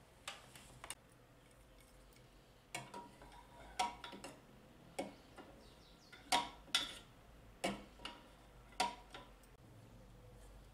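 Parts of a Bosch MFW3640A meat mincer being handled and fitted together: about a dozen irregular clicks and knocks of hard parts, some with a short ring, while the motor is not running.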